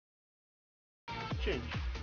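Digital silence, then electronic background music with a steady beat starts abruptly about a second in.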